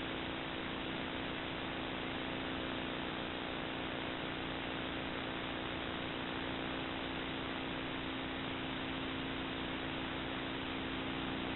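Steady electronic hiss with a constant low mains-type hum from a nest-box camera's audio feed; no bird calls or other distinct sounds stand out.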